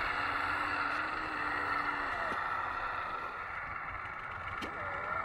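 Electric hydraulic pump of a radio-controlled CAT wheel loader running with a steady whine as the forks lift and lower a track section. The tone dips and shifts pitch about two seconds in and again near the end as the loader's controls change.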